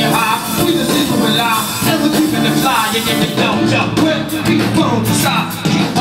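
Live hip-hop band playing loudly through a club PA: drum kit, keyboards and guitar, with vocals over the top.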